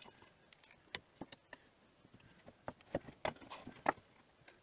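Faint, scattered light clicks and taps as hands handle an eighth-inch aluminum plate against a linear bearing rail.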